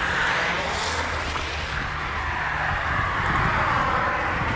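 Road traffic passing on a wet, snow-covered city street: a steady noise of tyres on the wet road and engine rumble that swells as cars go by.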